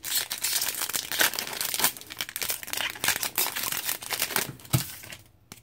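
Foil wrapper of a hockey card pack being torn open and crinkled in the hands: a dense run of crackling that stops a little after five seconds in.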